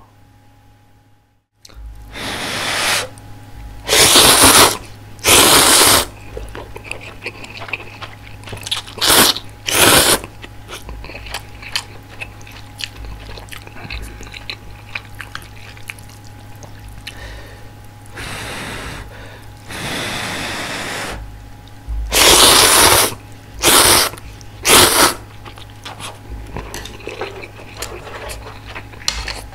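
Close-miked ramen eating: chopsticks and a spoon stirring and lifting instant noodles and soft tofu in a thin aluminium pot, with short loud mouth sounds of blowing on the hot noodles and slurping that come in clusters: two bursts about a sixth of the way in, two near a third, and three in quick succession about three quarters through. A steady low hum sits under everything.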